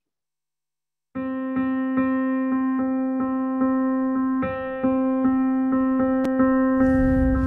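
Instrumental film soundtrack music starting about a second in: a note repeated about two or three times a second over a held pitch, with a fuller, noisier beat joining near the end.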